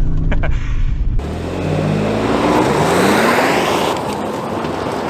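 Toyota Tundra's twin-turbo V6 launching hard in two-wheel drive on sand, its note rising as it revs while the rear wheels spin in a sand burnout, under a loud rushing noise. It begins as a low engine drone, and the rushing and rising engine note come in about a second in.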